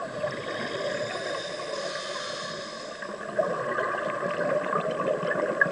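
Underwater sound of a scuba diver breathing through a regulator. A hissing inhale runs through the first half, then exhaust bubbles gurgle with small clicks.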